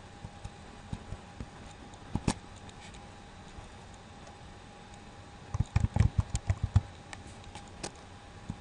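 Typing on a computer keyboard: a quick run of key presses, about a second long, in the second half, with a few single clicks before and after, over a faint steady hum.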